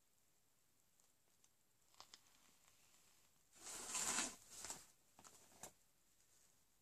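Rustling and handling noises as things are rummaged through, with a few small clicks and one louder rustle lasting under a second about midway.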